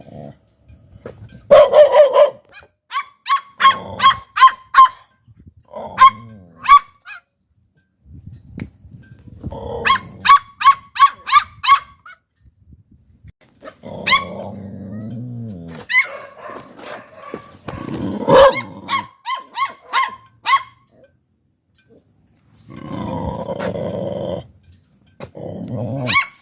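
Two Pitbull puppies barking in quick volleys of short, sharp barks, about three a second, with pauses between volleys and longer stretches of low growling.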